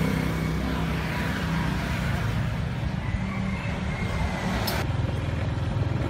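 Motorbike engine running steadily, with a short sharp click near the end.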